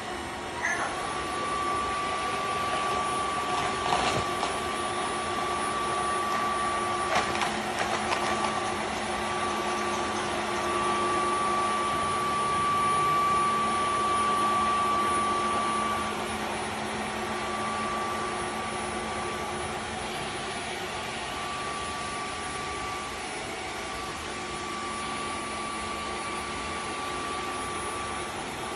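Dreame H14 Pro wet-dry vacuum mop running in auto mode: its motor spins up about a second in and keeps up a steady whine with a high tone over a rushing noise. Two brief knocks come around four and seven seconds in.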